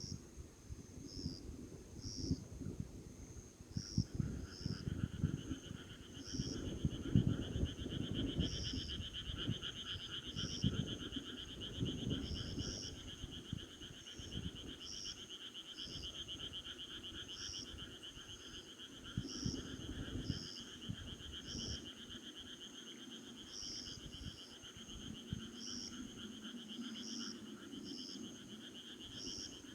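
Night insects and frogs calling: a steady high chirping with short repeated chirps every second or two, joined about four seconds in by a continuous pulsing trill. An uneven low rumble runs underneath.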